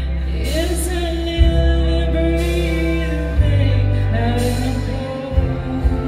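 Live rock band: a woman sings long held notes over sustained bass and electric guitars. Sharp drum hits start near the end.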